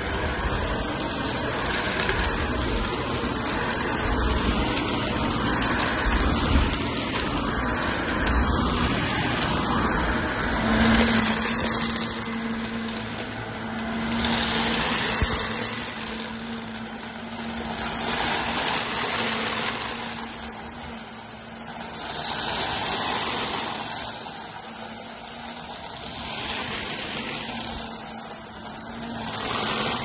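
Shark Navigator upright vacuum running and pushed back and forth over a rug, sucking up glitter and confetti debris with a light crunch. A steady motor hum comes in about a third of the way through, and the sound swells with each stroke, about every four seconds.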